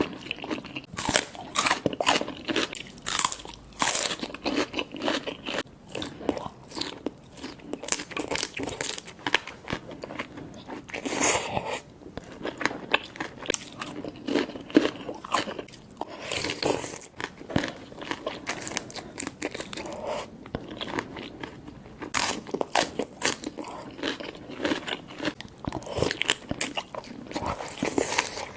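A person eating close to the microphone, biting and chewing a shrimp seafood boil meal with many quick crunchy, wet mouth clicks.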